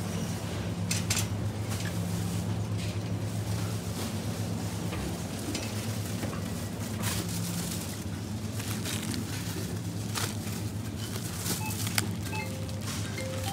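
Metal shopping cart rolling through a supermarket aisle, its wire basket rattling and clicking, over a steady low hum of the store's refrigerated display cases. A few short faint beeps sound near the end.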